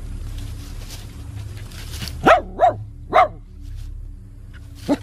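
Small dog barking at a cobra it is confronting: three quick barks about two seconds in, then one more near the end.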